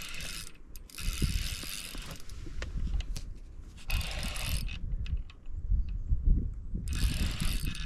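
Fishing reel being wound in four short bursts while a hooked fish is played, over low wind rumble on the microphone.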